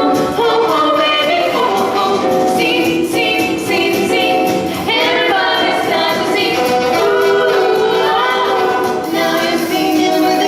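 Pop-jazz vocal ensemble singing a song, several voices together with female voices prominent.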